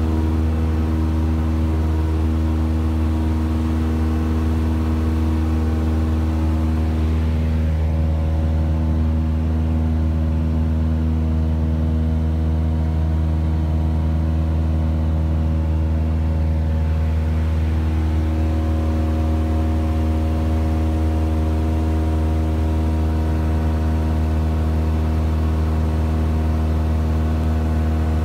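Cessna 172's piston engine and propeller droning steadily in flight, heard from inside the cockpit.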